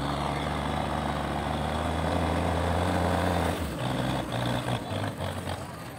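Belarus tractor's diesel engine running hard, pulling a heavily loaded sugarcane trailer. About three and a half seconds in, the steady engine note drops and becomes uneven.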